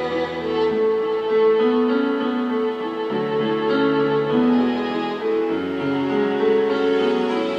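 Instrumental break in a slow pop ballad: piano and keyboard chords with strings, the chords changing every second or so, no singing.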